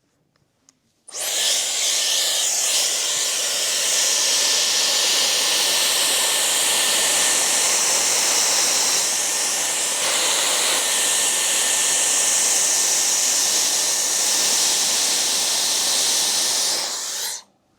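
Dyson hot-air round brush switched on about a second in, blowing air in a loud, steady rush with a thin high-pitched whine, then switched off just before the end.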